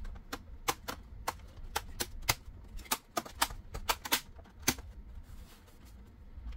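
Plastic retaining clips of an HP all-in-one PC's screen bezel snapping into place as the panel is pressed down along its edges: an irregular run of sharp clicks, several in quick pairs, that stops about five seconds in.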